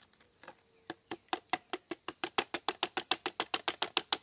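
A clear plastic container is knocked rapidly and repeatedly, knocking jataí stingless bees out of it into a wooden hive box during a colony transfer. The knocks start sparse, speed up to about six or seven a second and grow louder, then stop abruptly.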